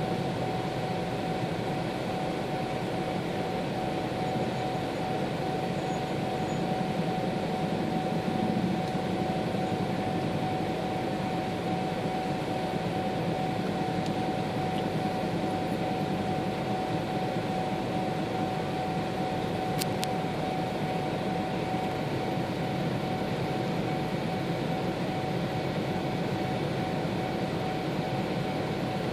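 Many motorcycle engines idling together in a queue at a railway level crossing, a steady low rumble, with the crossing's warning signal sounding as one unbroken high tone. A single short click comes about twenty seconds in.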